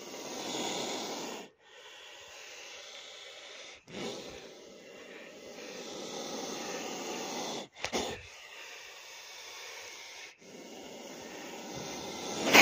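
Oxus cobra (Caspian cobra) hissing, a run of long breathy hisses a couple of seconds each, one after another, its defensive warning while reared up with hood spread.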